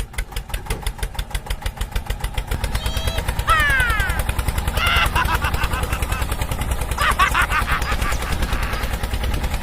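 A small engine running with a rapid, even putt-putt, louder from about three and a half seconds in. Short high chirps sound over it a few times.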